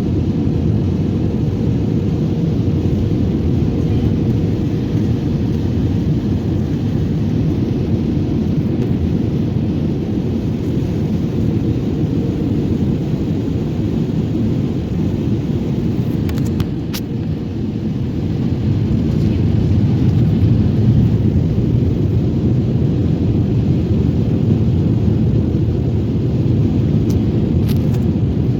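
Airliner cabin noise: a steady low rumble of jet engines and airflow. It dips briefly about two-thirds of the way through, then grows louder again.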